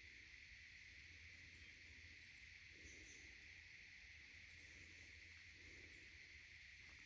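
Near silence: quiet woodland ambience with a faint, steady insect hum.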